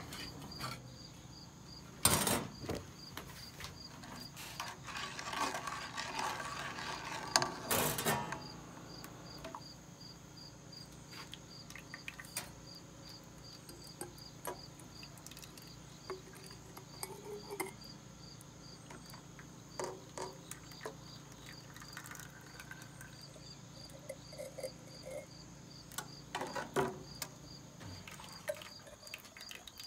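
Crickets chirping steadily in a high, evenly spaced pulse. Over them, clunks and a few seconds of handling and pouring noise as a mason jar is filled with sugar syrup, loudest about two and eight seconds in, then scattered small knocks.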